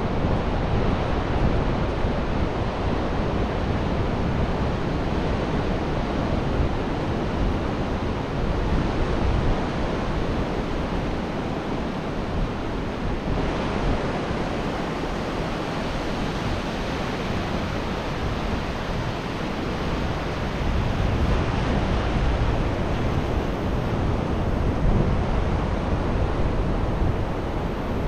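Ocean surf washing on a beach, a steady roar of noise that swells and eases, with wind rumbling on the microphone.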